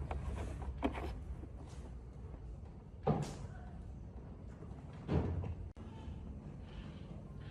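Three knocks or clanks, about two seconds apart, over a low hum that fades in the first second or so.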